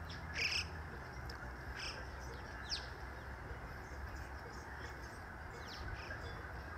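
Birds chirping in short, scattered high calls, a few with a quick downward sweep, over a steady low outdoor rumble.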